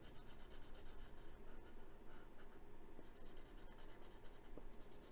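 Felt-tip marker scribbling on paper, quick back-and-forth strokes colouring in a drawn shape, pausing briefly about a second and a half in before starting again.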